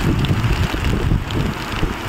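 Muddy floodwater torrent rushing past houses, a loud steady rush, with wind buffeting the microphone.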